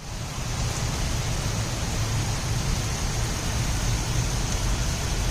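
Heavy rain falling, a steady even rush with a deep low rumble beneath it.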